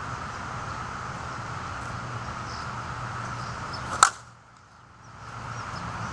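Monsta slowpitch softball bat striking a softball on a full swing: one sharp crack about four seconds in.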